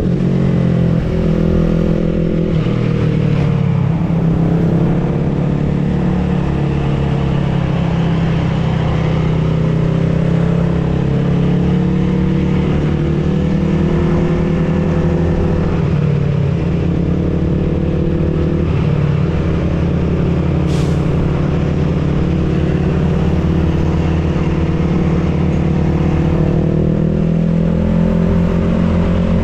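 A motor vehicle engine running steadily under way, its pitch drifting slightly up and down.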